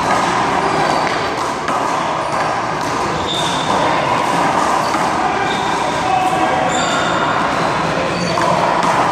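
A small rubber handball being struck and bouncing off the wall and court during a one-wall handball rally, a few faint knocks over a steady noisy background with a little voice.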